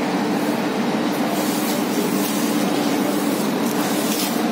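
Dal-processing machinery running steadily: a continuous mechanical rumble with a hum, and faint short hisses now and then.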